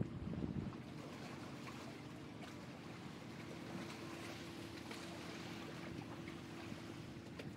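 Faint seaside ambience: water washing gently against concrete breakwater blocks, with a steady low hum underneath and a few low knocks in the first half second.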